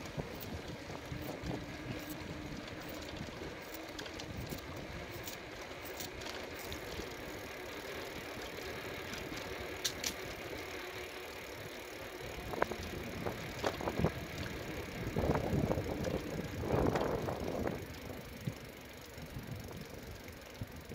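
Bicycle riding on a concrete road: steady tyre and wind noise, with light rattles and clicks from the bike and a few louder bumpy rattles in the later part.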